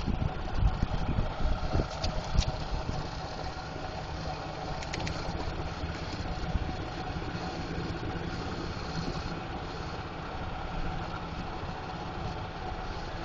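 Golf cart running along with a steady hum, with a few sharp knocks and rattles in the first couple of seconds.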